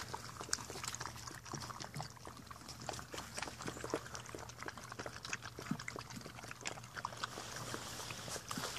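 A litter of German Shepherd puppies eating together from a stainless steel bowl: a quiet, busy run of small wet clicks and smacks from their lapping and chewing.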